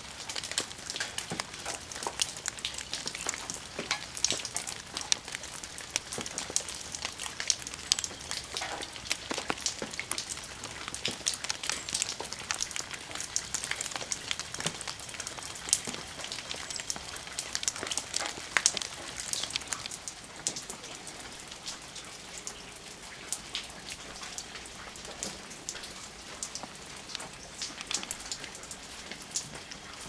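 Raindrops falling into a small garden pond and onto ivy leaves: many small irregular drips and plops, thinning out after about twenty seconds.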